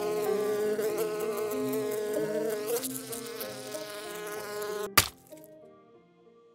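A bee buzzing loudly, its pitch wavering, cut off about five seconds in by a single sharp crack, after which faint short notes fade away.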